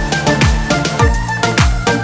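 Background music with a steady electronic beat: deep kick drums that drop in pitch, about two a second, over sustained synth tones.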